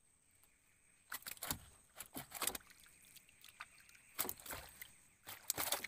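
Water splashing and sloshing in four short bouts, each about half a second long, with a faint steady high whine underneath.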